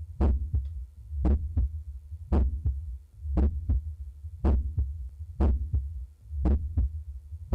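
Heart sounds heard by auscultation over the aortic valve area: a steady beat of just under one per second. Each beat is a louder first sound followed closely by a softer second sound, over a steady low hum.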